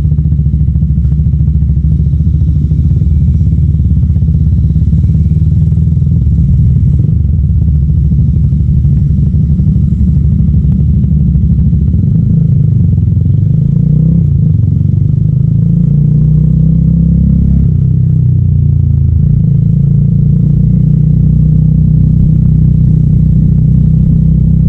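Motorcycle engine with an aftermarket Akrapovic M1 exhaust, running under way at a steady deep note. It wavers about halfway through, then rises slowly in pitch toward the end.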